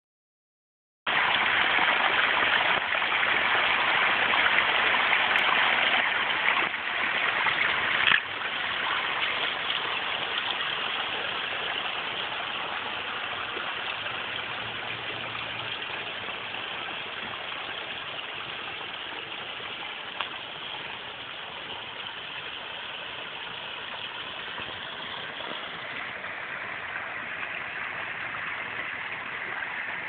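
Water splashing steadily as it spills over the flat stone ledges of a small boulder waterfall onto stones and gravel. It starts about a second in, loudest at close range, then grows gradually softer, with a brief knock about eight seconds in.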